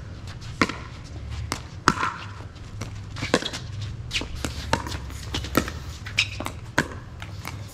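Pickleball rally: a quick, steady series of about a dozen sharp pops as paddles strike the plastic ball and the ball hits the court, roughly one every half second to second.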